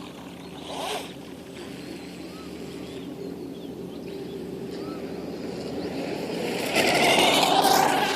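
Racing boat engine running steadily and growing louder as it approaches, loudest and passing close with a rising whine a second or so before the end.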